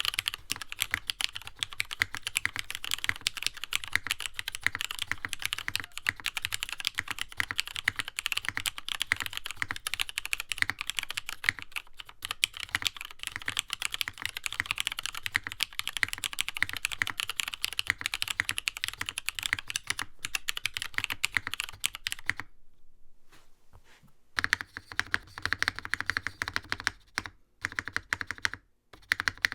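Fast, continuous typing on a NovelKeys Classic TKL mechanical keyboard, a dense stream of key clacks. It stops for about two seconds roughly three quarters of the way through, then starts again in shorter runs.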